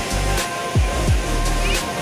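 Background music with a heavy bass beat: deep bass notes, falling bass-drum hits and regular cymbal ticks.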